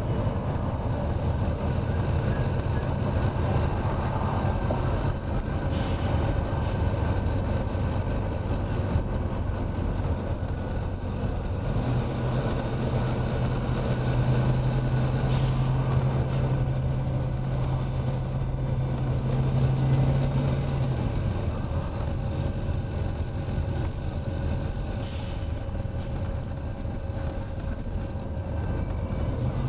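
Volvo B9TL double-decker bus's six-cylinder diesel engine running hard at road speed, heard from on board: a steady, heavy drone that grows louder midway and then eases. Three short air hisses, about ten seconds apart, cut in over it.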